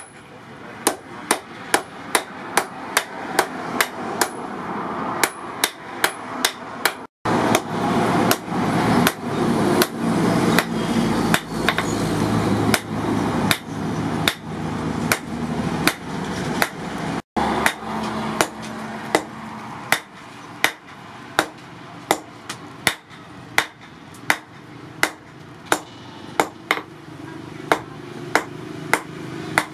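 Hand hammer forging a red-hot steel file on an anvil: a steady run of hammer blows, about two a second, each with a short metallic ring.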